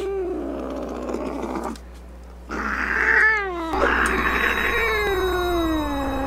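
A cat yowling in three drawn-out calls, with a short pause about two seconds in; the last call is the longest and slides slowly down in pitch.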